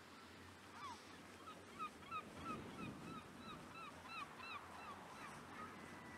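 Large birds calling in flight: a quick run of short, repeated calls, about three a second, that thins out near the end, over faint wind.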